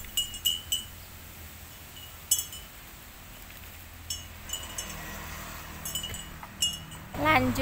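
Light metallic chimes tinkling in short clusters of clear, high notes every second or two, over a faint steady low hum.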